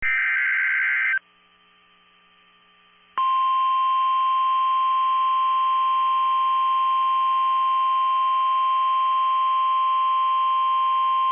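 NOAA Weather Radio emergency alert: about a second of harsh digital warble from a SAME data burst, then after a gap of about two seconds the steady 1050 Hz warning alarm tone, which marks a warning broadcast.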